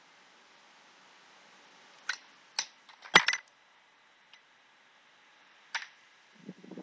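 A few sharp clicks and taps of makeup tools being handled as a brush is swapped for a liquid eyeliner pen, the loudest a quick cluster of clicks about three seconds in and one more click near the end. A steady faint hiss runs underneath.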